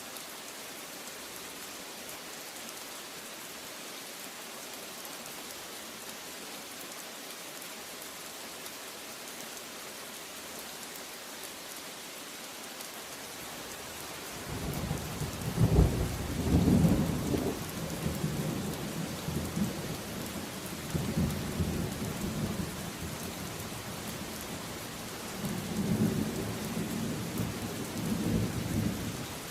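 Steady heavy rain hiss. About halfway through, thunder rolls in with a loud crack at its start and rumbles on, swelling again near the end.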